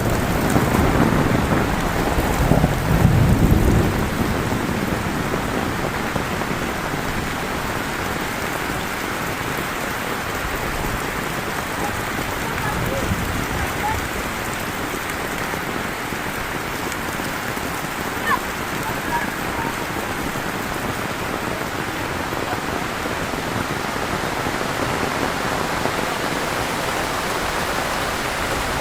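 Heavy rain falling steadily in a dense, even hiss, with a low rumble of thunder dying away over the first few seconds.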